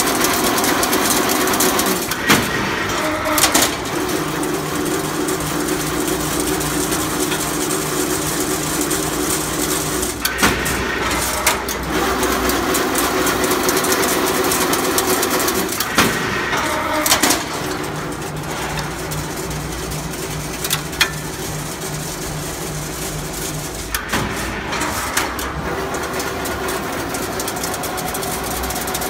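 Automatic single-wire chain link fence machine running: a steady motor hum that breaks off every six or seven seconds, with a few sharp clanks at each break as the machine goes through its repeating cycle.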